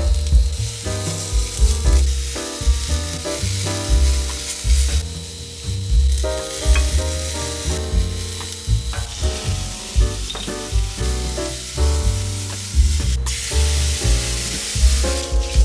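Food sizzling as it fries in a pan, a steady crackling hiss, under background music with a deep pulsing bass beat.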